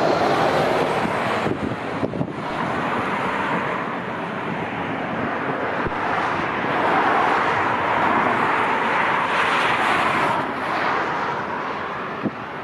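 Jet airliner engine noise mixed with wind buffeting the microphone, a loud rushing sound that swells in the middle and eases off near the end.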